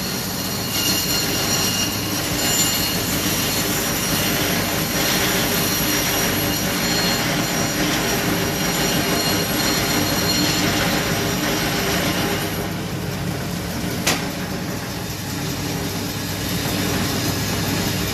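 Meat band saw running with its blade cutting through a large block of marbled beef: steady machine noise with a high whine that fades about twelve seconds in. A single sharp tick about fourteen seconds in.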